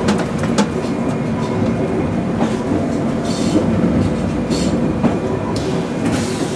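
VT 98 Uerdingen railbus running along the line, its underfloor diesel engine droning steadily while the wheels click over the rail joints. A few brief hisses come in during the second half.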